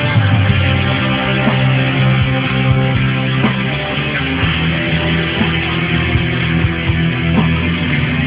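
Instrumental passage of a rock band song, led by guitar, with drums keeping a steady beat and no vocals.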